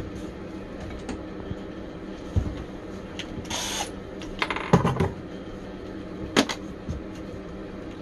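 Objects being handled on a workbench: a brief rustle before the middle, a cluster of clicks soon after, and one sharp click later on, over a steady low hum.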